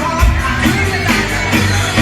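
Live rock band playing, with a steady drum beat under bass and other instruments.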